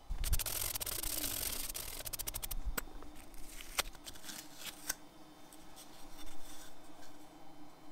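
Blue painter's tape being peeled off a plywood workpiece on a CNC router bed: a crackling rasp lasting about two and a half seconds, followed by a few sharp knocks as the board is handled and lifted off the bed.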